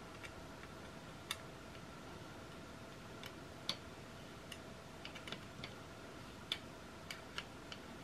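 Steel credit-card multi-tool's screwdriver tip clicking against a cross-head screw as it turns the screw: about a dozen irregular sharp clicks, the loudest about a second in and near four seconds in, over a faint steady hum.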